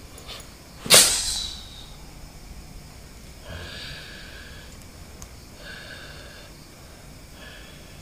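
A person lets out one sudden, loud, forceful snort-like blast of breath about a second in, then three softer hissing breaths follow.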